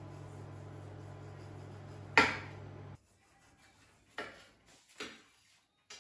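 Kitchen knife knocking against a wooden cutting board while a mango is peeled: one sharp knock about two seconds in, then two lighter taps. A low steady hum underneath cuts off suddenly about three seconds in.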